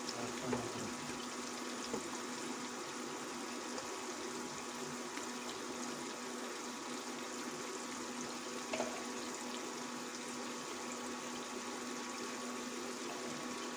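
Chopped onions frying in hot oil in an aluminium pot: a steady sizzle with a few faint pops, over a steady low hum from the induction cooktop.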